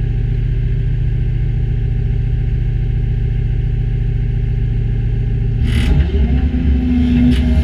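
Diesel engines of a tracked excavator and a site dumper running steadily. About six seconds in, the sound changes: a short burst of hiss, then a louder, rougher engine note under load with a few sharp knocks.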